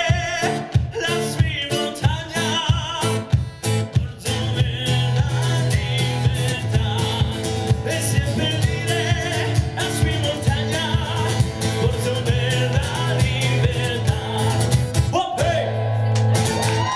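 A man singing live over his own strummed acoustic guitar. Near the end the strumming stops and a last chord and note are held.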